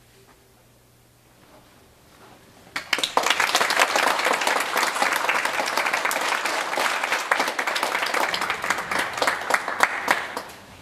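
Audience applause breaking out suddenly about three seconds in after a hush, dense clapping that dies away near the end.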